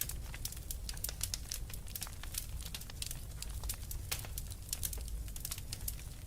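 Fire crackling in a fireplace: a dense, irregular run of small sharp pops and snaps over a low, steady rumble of the flames.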